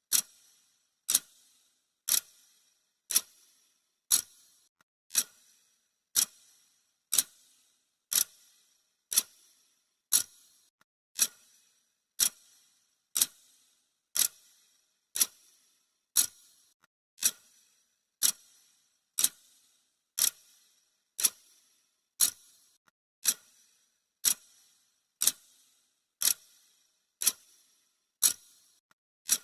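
Clock-ticking sound effect of a countdown timer: sharp, high-pitched ticks at about one a second, evenly paced.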